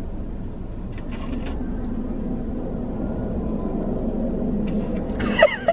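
Steady low rumble and hum of a car, heard inside the cabin, with a few faint clicks. Near the end there is a short vocal sound from one of the occupants.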